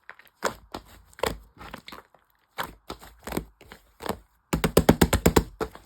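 Crinkling and crackling handling noise made of separate sharp clicks, with a quick run of rapid clicks about four and a half seconds in.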